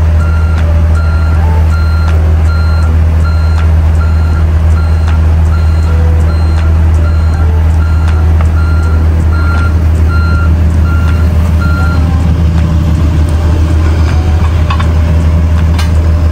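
Compact excavator's diesel engine running steadily while its travel alarm beeps a little over twice a second, the beeping stopping about 12 seconds in. A few sharp clicks come through.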